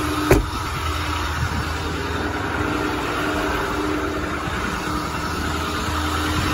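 A single sharp knock about a third of a second in, the truck's cab door shutting. Then the 6.4L Powerstroke V8 diesel of a 2008 Ford F-450 idles steadily with a steady hum over it, the power take-off engaged to drive the boom's hydraulics.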